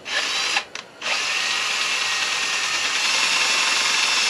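Handheld power drill boring a hole through neoprene rubber stripping on a roof rack rail. It runs in a short burst, stops with a brief blip, then runs steadily from about a second in.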